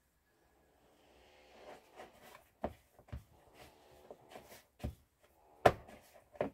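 Hands mixing and kneading dough in a plastic bowl: irregular scraping and squishing, with several sharp knocks, the loudest near the end.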